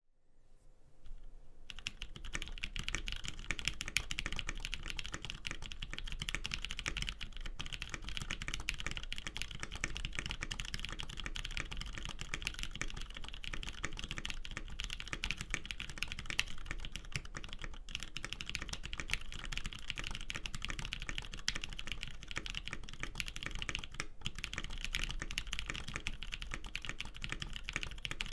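Custom mechanical keyboard with a polycarbonate case and plate, lubed Mod M tactile switches and GMK keycaps, being typed on fast and continuously. The typing starts about a second and a half in and goes on as a dense run of keystroke clicks, with brief pauses twice.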